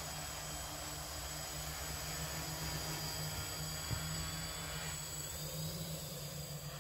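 Quadcopter's four electric motors and propellers running in flight: a steady buzzing whine that gets a little fainter in the last second or two.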